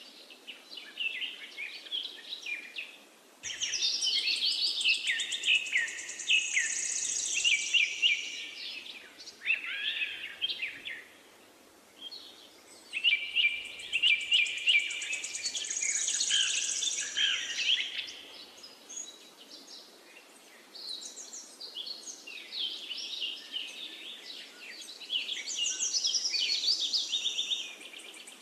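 Birds chirping and singing in long runs of quick, high, sweeping notes, with short gaps between, over a faint steady hiss.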